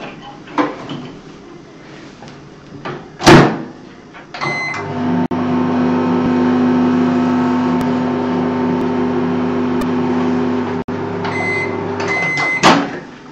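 Microwave oven: a loud clunk of the door shutting, a few keypad beeps, then the oven running with a steady hum for about seven seconds. The run ends with beeps and another clunk as the door opens.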